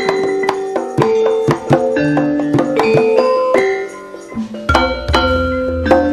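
Live campursari music: an electronic keyboard playing a melody of short notes over a busy pattern of hand-drum strokes. A deep bass line comes in about three-quarters of the way through.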